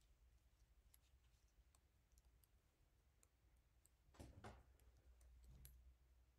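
Near silence: faint room tone with a few soft, scattered clicks and a brief soft noise about four seconds in.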